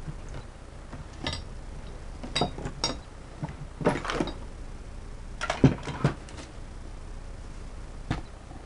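Metal tools and hardware clinking and knocking as they are moved about in a hunt for a dropped nut: a string of short, separate clicks and clatters, unevenly spaced, the loudest a little past halfway.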